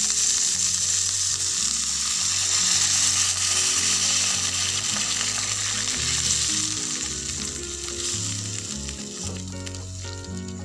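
Cauliflower and carrot slices sizzling in hot oil in a non-stick frying pan as a wooden spatula stirs them; the sizzle softens near the end. Light background music underneath.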